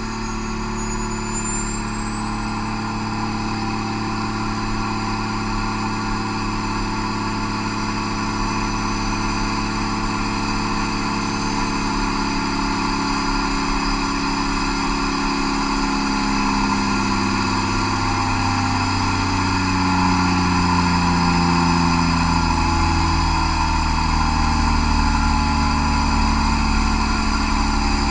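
Cummins QSM11 inline six-cylinder turbo diesel running at full power on a dynamometer. The load is being raised, so the engine is pulled down from about 2200 to 1400 rpm: its pitch falls slowly while it grows louder.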